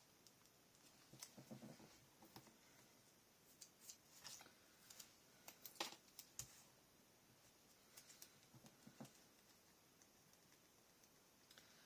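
Faint, scattered clicks and short rustles of paper and small cardstock embellishments being handled and pressed onto a scrapbook page.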